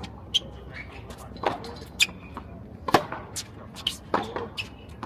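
Tennis balls being struck by rackets and bouncing on a hard court: an irregular series of sharp pops, about eight in five seconds, the loudest near three seconds in.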